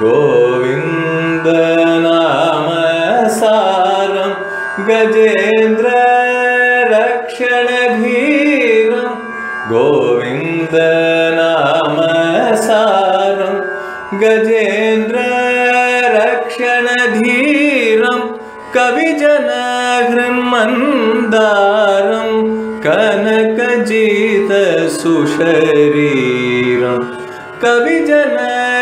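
Carnatic music in raga Hindolam: a continuous melodic line with sliding, ornamented notes.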